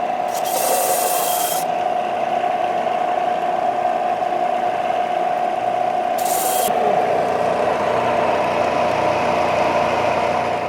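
Power sander running steadily on a wooden block, a continuous rasping whine with two brief sharper hisses, one about half a second in and one about six seconds in.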